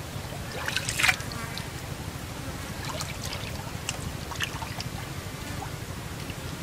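Water trickling and sloshing as hands grope underwater in a muddy bank, with scattered small splashes, the loudest about a second in, over a low steady rumble.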